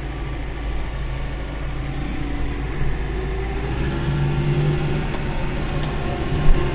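John Deere 4052R compact tractor's diesel engine running steadily, heard from inside the cab as the tractor drives and turns across the field; its hum grows a little stronger about two-thirds of the way in. A brief sharp knock near the end.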